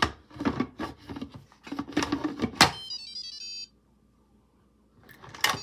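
Instant Pot lid rattling and scraping as it is set on and turned, then a sharp click as it locks and the cooker's short electronic jingle. Another click and the jingle again right at the end.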